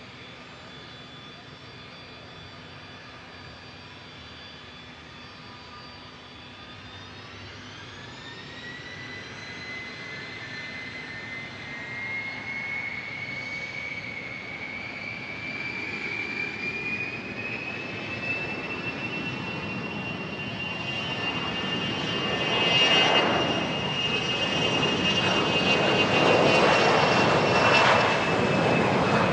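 Jet aircraft engines with a turbine whine that climbs in pitch as they spool up, growing steadily louder, with a broad roar building over the last several seconds.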